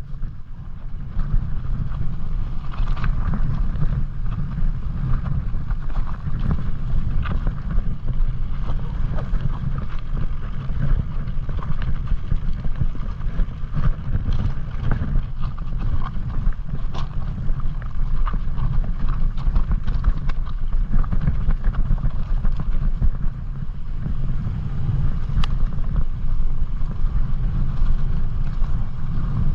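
Wind buffeting the microphone over a mountain bike's tyres rolling across snow-covered, stony ground, with scattered sharp clicks and rattles from the Orange Five full-suspension bike as it rides over the rocks.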